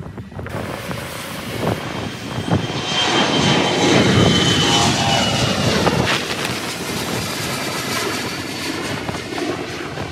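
Jet airliner's high-bypass turbofan engines roaring at takeoff power as it climbs overhead. The roar swells to its loudest a few seconds in, with a thin high fan whine on top, then carries on a little lower and steadier.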